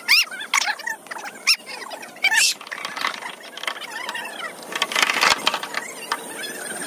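Repeated short, sharp chirps and squeals from birds, with a rasping scrape about five seconds in as a mould is dragged over dirt.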